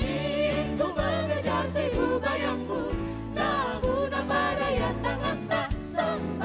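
Pop band music with a drum beat, a bass line and keyboards carrying a wavering melody.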